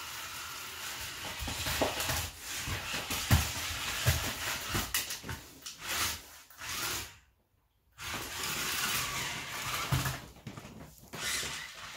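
Irregular plastic knocks and clatter as a toy remote-control stunt car is handled and bumped on a laminate floor. The sound drops out completely for most of a second about seven seconds in.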